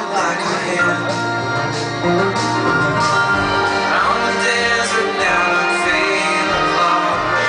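Live folk-rock ballad: acoustic guitar and orchestral strings playing, with a man singing over them.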